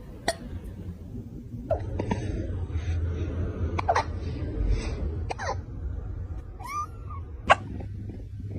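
Kitten hiccupping: short, sudden hiccups at irregular intervals, about eight in all, the loudest near the end. A brief call that rises and falls in pitch comes just before the last one.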